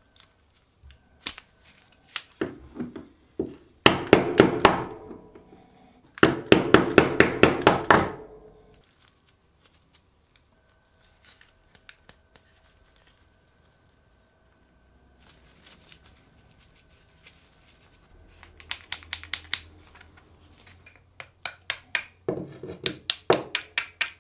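Runs of small metal clicks, about five a second, as the lockwork of an antique Bulldog revolver is worked and reassembled by hand. Two loud runs come a few seconds in, and quieter ones come near the end.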